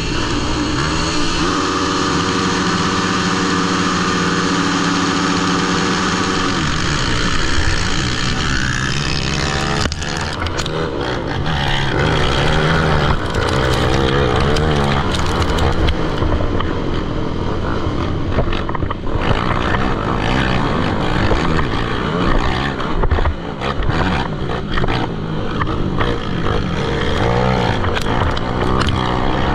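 A pack of motocross bikes running together. For the first several seconds the engines are held at steady revs; from about ten seconds in they rev hard, with many engines rising and falling in pitch at once.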